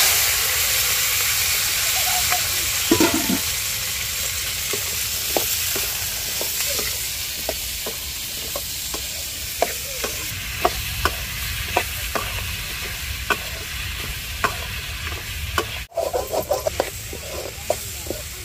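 Onion, tomato, ginger, garlic and chillies sizzling in hot oil in a pan. The hiss starts suddenly and loud, then eases off slowly. From about five seconds in, a spoon stirring the pan makes scattered sharp taps.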